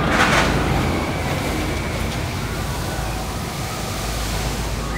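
Wind buffeting the microphone in the open sky-ride car, a steady low rumble with a brief louder rush right at the start.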